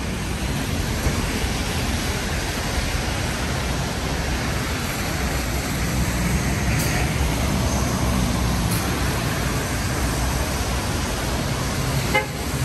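City street traffic in the rain: a steady hiss of rain and tyres on the wet road under running engines, with a brief car horn toot.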